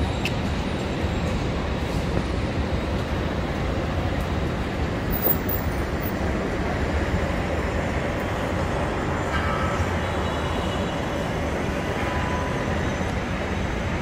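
Steady low rumble and hiss of city traffic on wet streets, an even wash of sound with no single event standing out.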